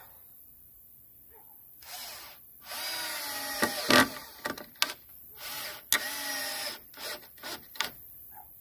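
Cordless drill running in several bursts into wood, a steady motor whine that starts and stops, with a few sharp clicks.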